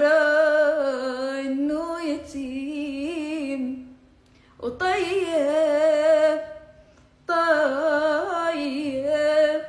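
A young woman singing an Arabic song unaccompanied, in three long, drawn-out phrases of held, wavering notes, with short pauses for breath about four and seven seconds in.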